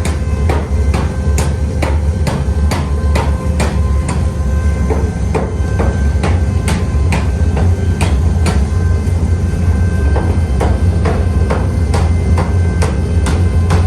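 Hammer blows on metal, about two to three a second at an uneven pace, each with a metallic ring, over a steady low hum.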